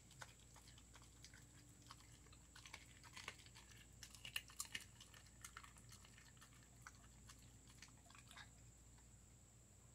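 Siberian Husky chewing raw chicken bones: irregular sharp crunches and cracks, thickest a few seconds in and thinning out near the end.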